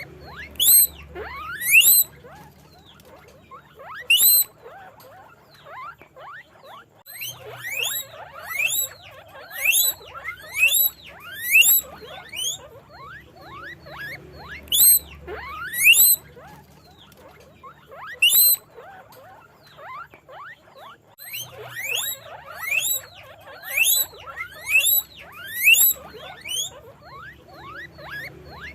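Guinea pig squeaking: repeated shrill wheeks that each rise sharply in pitch, coming in runs of several calls about a second apart with short pauses between runs.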